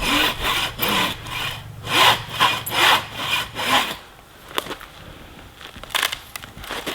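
Hand saw cutting through a tree trunk in even back-and-forth strokes, about two a second, stopping about four seconds in. Then come a few sharp cracks from the wood.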